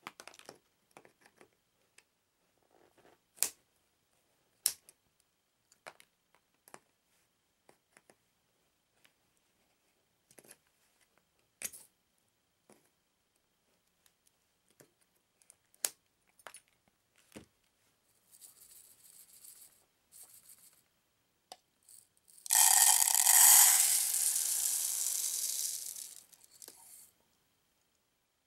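Diagonal cutters snipping and prying at the crimped metal top of the keg's inner canister: scattered sharp clicks and snaps, a dozen or so. About 22 seconds in comes the loudest sound, a few seconds of dense rattling hiss as activated carbon granules pour out of the opened canister into a plastic cup, fading out near the end.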